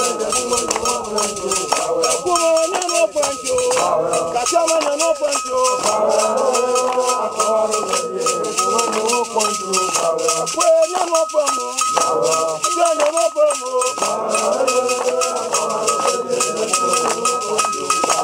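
A hand rattle shaken in a steady rhythm while a man chants in a rising and falling voice, an invocation led by a traditional shrine priest.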